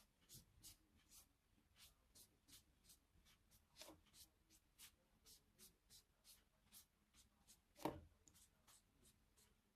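Faint light clicks or taps, about three a second, with two louder knocks about four and eight seconds in.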